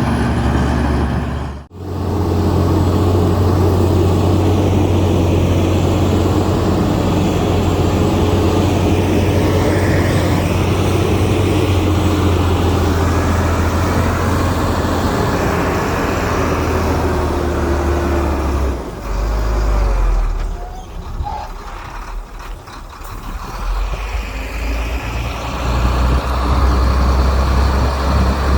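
Heavy diesel engine of earthmoving machinery running steadily under load, with a deep, even drone. It cuts out for a moment near the start. About two-thirds of the way through it drops in pitch and goes quieter, then picks up again toward the end.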